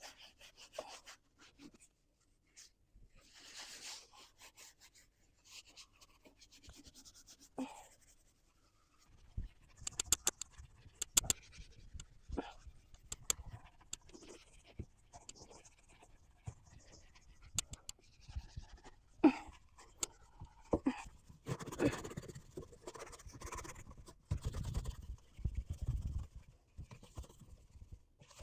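Scouring pad scrubbing the baking-soda-coated inside of an oven: irregular scratching and rubbing strokes with scattered sharp clicks and knocks, busier in the second half.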